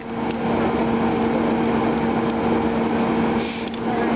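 Engine-driven hydraulic power unit for Hurst rescue tools running steadily with a constant hum, briefly quieter about three and a half seconds in.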